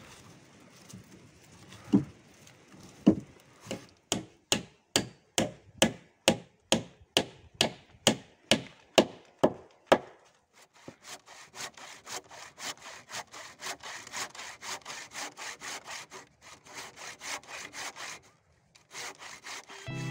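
Hand saw cutting through wood in steady back-and-forth strokes, about two a second, then quicker and lighter strokes through the second half.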